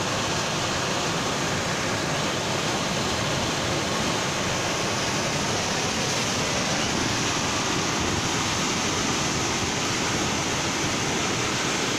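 River in spate: muddy floodwater rushing and churning over standing waves in a steady, unbroken noise.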